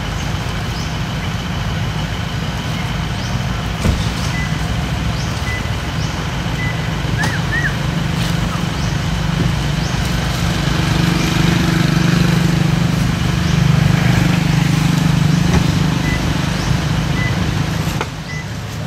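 Steady low engine drone, as of a motor vehicle running close by, swelling in the middle and easing off near the end, with a few short high chirps over it.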